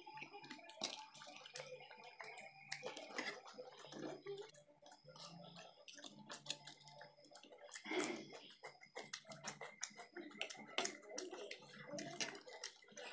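Close-up eating sounds: wet chewing and smacking of chowmein noodles and fried egg, with scattered light clicks of cutlery and fingers on plates. One louder smack comes about eight seconds in.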